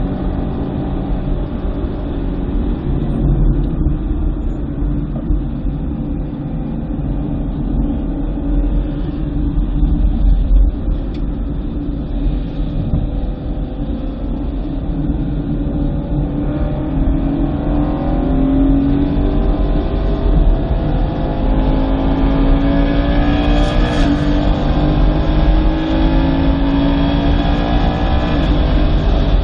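2009 BMW M3's V8 engine running under load over heavy low road and wind rumble. From about halfway the engine note rises steadily as the car accelerates.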